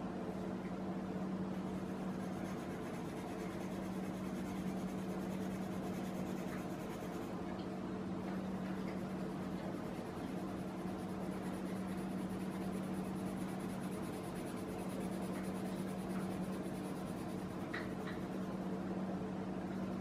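Colored pencil scratching over drawing paper in continuous short shading strokes, over a steady low hum.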